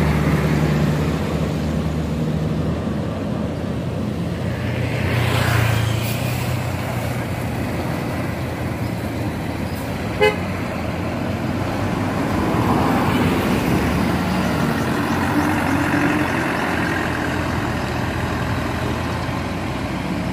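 Road traffic with buses: a steady drone of engines, one vehicle swelling louder as it passes about five seconds in, and a single short horn toot about ten seconds in.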